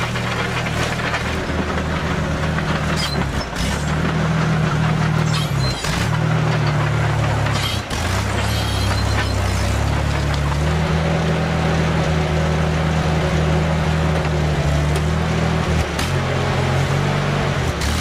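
Bristol 25 crawler dozer's engine running under load as it pushes a heap of pine needles and soil, its steady low note dipping and recovering a few times, with a few sharp clanks.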